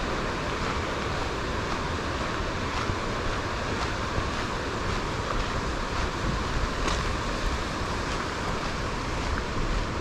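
Steady rushing of a mountain stream, with wind buffeting the microphone.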